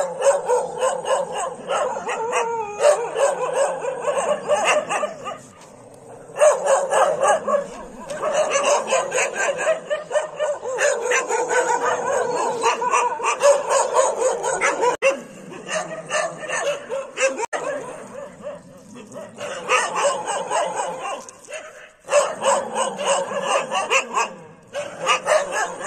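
A group of street dogs barking and yipping over one another in a near-continuous chorus, with a few short breaks.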